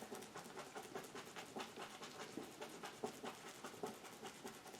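Bristle paintbrush tapping acrylic paint onto a canvas to stipple grass: rapid, faint dabs, several a second.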